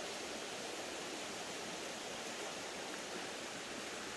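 Creek water running, a steady even rush with no breaks.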